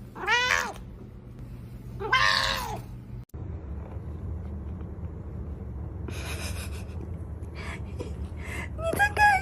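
A cat meowing twice, two short calls that rise and fall in pitch about two seconds apart. Then a low steady hum with light rustles and clicks, and another short pitched call near the end.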